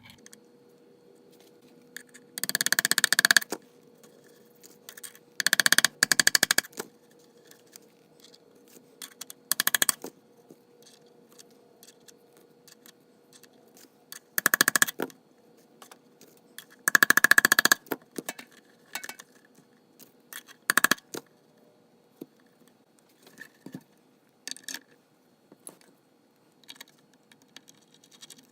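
Hand work on mandolin tuner hardware at a bench: about six short, scratchy scraping and rattling bursts from small metal parts and tools, spaced a few seconds apart.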